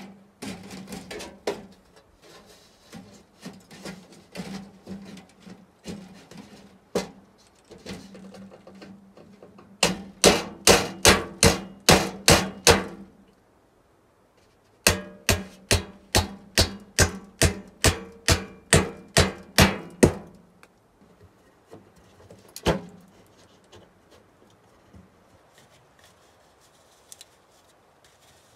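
Hammering to fasten the sheet-metal chimney plate to the log wall. Scattered lighter knocks come first, then two quick runs of about a dozen sharp blows each, and one last blow near the end.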